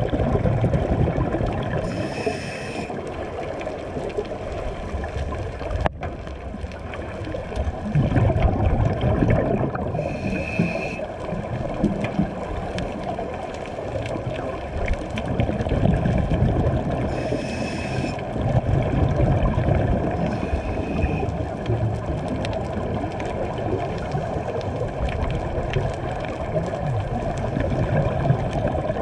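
Scuba diver breathing through a regulator, heard underwater: a steady low rumble of exhaled bubbles that swells in bursts, broken four times by a short hiss of inhalation through the regulator.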